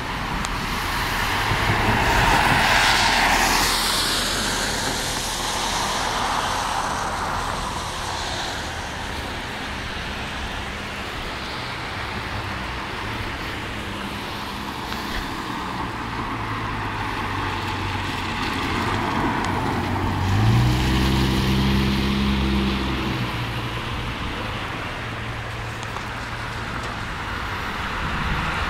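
Steady outdoor road and wind noise on a wet street, swelling broadly a couple of seconds in as a vehicle passes. About two-thirds through, a passing vehicle's engine hum comes up for a few seconds and then fades.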